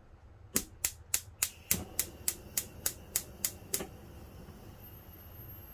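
Gas stove's electric spark igniter clicking about a dozen times, roughly three clicks a second for about three seconds, as a burner is lit.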